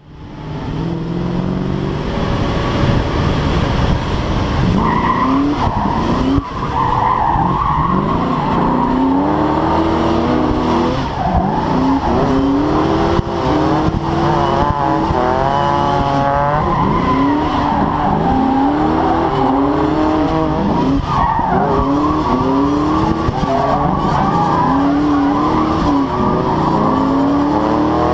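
Fox-body Mustang's 5.0 (302) V8 revving up and down hard again and again through a drift, with tyres squealing and skidding throughout, heard from the hood.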